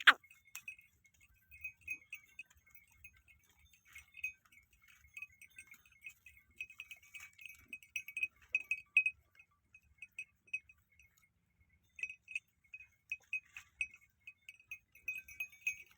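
Small bells tinkling in short, irregular jingles, thickest about halfway through and again near the end. There is one brief, louder sharp sound at the very start.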